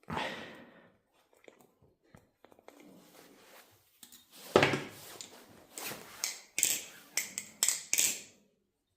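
Balisong trainer being flipped, its handles swinging and clacking together. There is one loud clack about halfway through, then a quick run of sharp clicks near the end.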